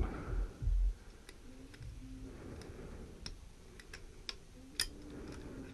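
Light metallic clicks and taps, roughly two a second, from hands and parts being handled on an opened motorcycle engine, with low fumbling noise in the first second.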